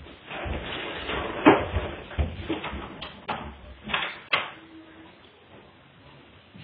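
A string of knocks and clatters from Play-Doh tools and moulds being handled on a table. The loudest comes about a second and a half in, and it goes quieter over the last two seconds.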